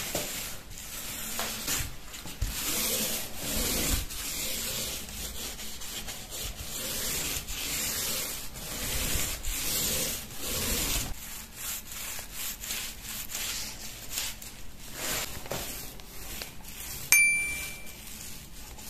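Small paint roller rolling wet paint over a cabinet door, a sticky swishing hiss with each back-and-forth stroke. A single bell-like ding rings out near the end, the loudest sound.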